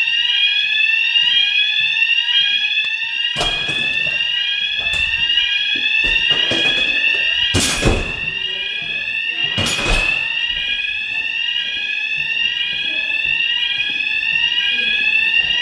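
Building fire alarm sounder going off continuously: a loud whooping tone of rising pitch sweeps repeating quickly and evenly. A few sharp thumps cut through it, about three and a half seconds in and twice more around eight and ten seconds.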